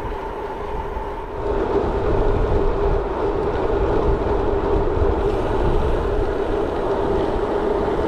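Wind buffeting the microphone of a bicycle-mounted action camera, with a steady droning hum from a gravel bike rolling along a tarmac road. The pitch of the drone drops about a second and a half in.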